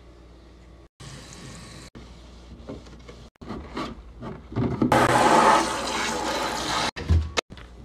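A sponge scrubbing a soapy stainless-steel kitchen sink, broken by several abrupt cuts. About five seconds in, a spray of water from the tap rinses the sink with a loud rush of water that lasts about two seconds.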